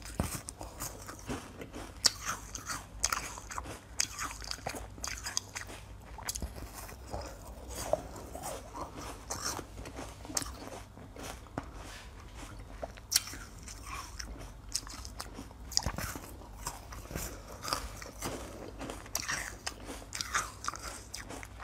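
Crisp, irregular cracks of teeth biting through a thin sheet of frozen ice and crunching the pieces, a few every second, close to the microphone.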